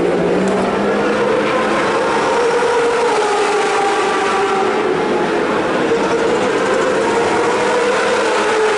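Superbike engines running on the circuit: a loud, steady drone whose pitch slowly rises and falls.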